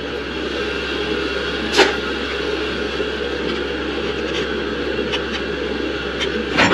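Steady low hum and hiss, with a sharp click about two seconds in and another near the end, as the old recirculation pump is handled and worked loose inside the boiler cabinet.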